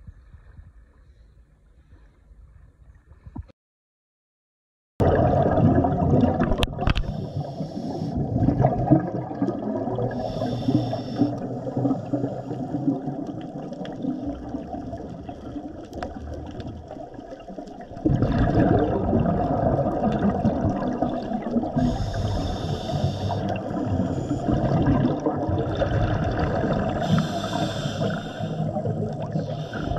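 Underwater water noise: a dense, muffled rushing and gurgling, with a few short hissing bursts of bubbles. It starts suddenly about five seconds in, after a faint stretch and a moment of dead silence, and steps louder about eighteen seconds in.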